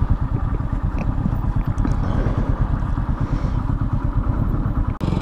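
Motorcycle engine idling with a steady, rapid low putter. It cuts out for an instant near the end.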